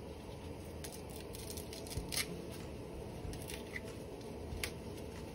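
Light, scattered clicks and taps from a spoon and moringa leaves being worked into a pot of curry, over a steady low background hiss.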